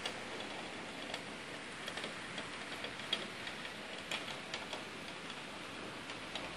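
Rain falling steadily, with irregular drops tapping sharply on the wooden balcony ledge.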